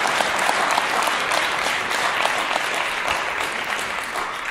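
Audience applauding, many hands clapping, the clapping thinning and dying away near the end.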